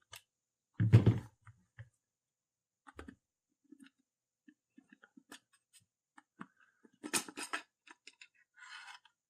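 Handling noise as the back panel of a Southwire 14070T multimeter is unscrewed and opened: a loud knock about a second in, scattered small clicks of the screwdriver and plastic case, a quick run of clattering clicks about seven seconds in, and a brief scrape near the end.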